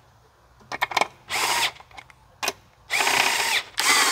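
Cordless drill-driver running bolts down into a supercharger housing in three short bursts, each with a motor whine, and a few light clicks between. The bolts carry rubber O-ring seals and need very little torque.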